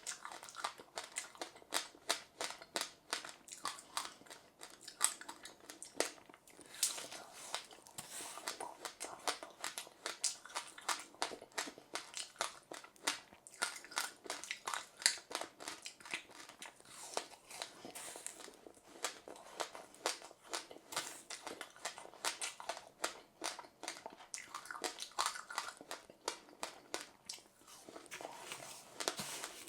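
Close-up chewing of passion fruit with sesame seeds: a continuous run of small, crisp crunches and clicks as the seeds are bitten, several a second.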